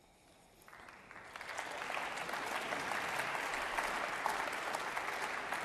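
Audience applauding: scattered clapping begins less than a second in and swells within a second or so into steady applause from many hands.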